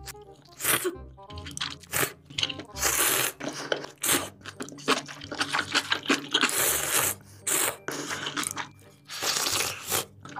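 A person slurping ramen noodles: repeated noisy slurps, a few long drawn-in ones about three seconds in, in the middle and near the end, with shorter sucking and chewing sounds in between.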